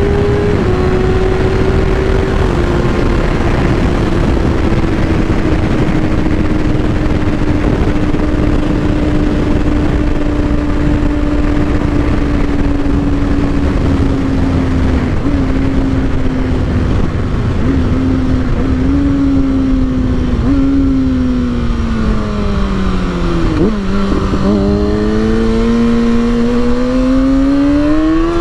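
2019 Kawasaki Ninja ZX-6R's inline-four running through its Akrapovic exhaust, recorded on the moving bike. The engine note sinks slowly for about twenty seconds as the revs fall, dips to its lowest about three quarters of the way in, then rises steadily as the bike accelerates again, over a constant rush of wind.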